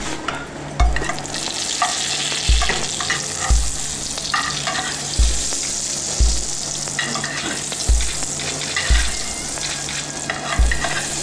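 Butter and oil sizzling in a frying pan around a brick-pastry parcel, with a metal spoon scooping and clinking in the hot fat. Low thuds come through regularly, in pairs about a second apart.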